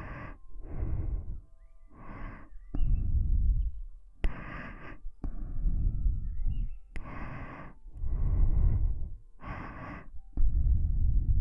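Slow breathing close up on a KU100 binaural dummy-head microphone: about ten breaths in and out, each a second or so. The longer breaths puff onto the microphone with a deep low rumble.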